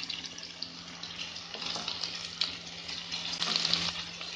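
Chopped onion sizzling in hot mustard oil in a kadhai, freshly added, a steady hiss with scattered sharp crackles as a wooden spatula stirs it.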